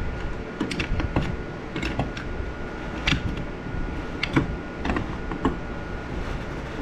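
Irregular light clicks and knocks, about a dozen, from hand work with tools and parts. They sit over a steady low rumble and a faint steady high tone.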